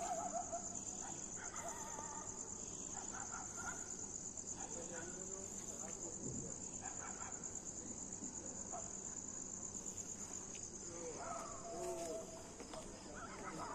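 Crickets chirping in a steady, high, finely pulsing chorus, with faint scattered lower-pitched calls beneath it.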